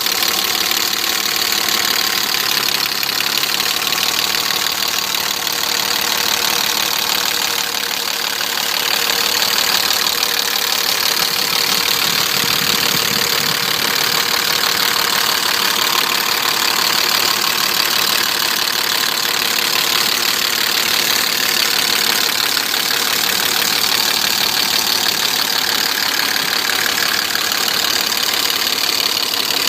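BMW E34's M50 straight-six engine idling steadily with a knocking coming from the engine, the fault the owner is showing.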